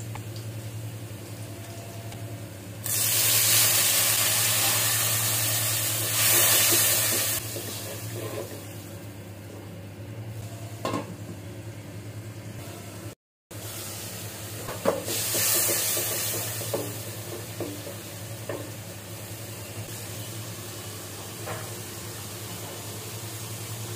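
Onions, chillies and ground spices frying in hot oil in an aluminium pan while they are stirred with a spoon. The sizzling is loud from about 3 s to 7 s and again from about 15 s to 17 s, with a few light knocks of the spoon on the pan and a steady low hum underneath.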